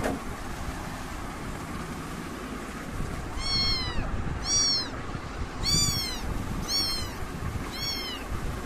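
Young kitten meowing: five short, high-pitched mews about a second apart, each falling in pitch at its end, starting a few seconds in.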